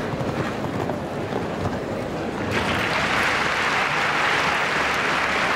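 Arena crowd noise, then a large crowd breaks into applause about halfway through and keeps clapping, greeting the finish of a show-jumping round.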